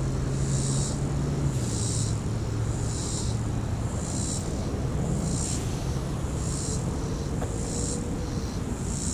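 Insects buzzing in a regular pulsing rhythm, a high buzz roughly every second, over a low steady hum and rumble.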